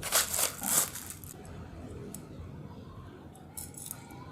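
Light metallic clinks and rattles of a balisong trainer knife being handled, clustered in the first second, then a few faint clicks later.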